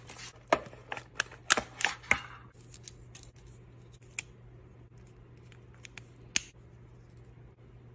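Handling clicks and taps as makeup brushes are taken out of their case: a quick irregular run of clicks in the first couple of seconds, then a few single taps spaced out later.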